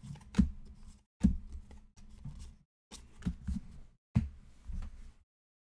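Trading cards being handled and set down on a table: a string of short taps and knocks, about six over four seconds, over a low hum, cutting off to silence about five seconds in.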